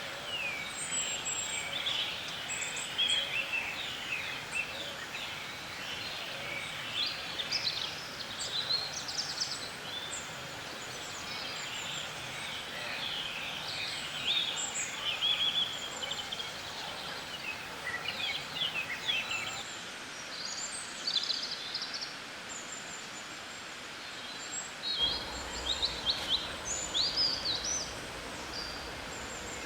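Several songbirds chirping and singing in overlapping short phrases and trills, coming in clusters with brief lulls, over a steady background hiss.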